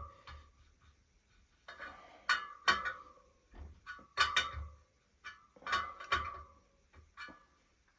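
A dozen or so irregular metallic clinks and taps, each ringing briefly, from a spoke wrench and tools working against the wire spokes and rim of a spoked wheel.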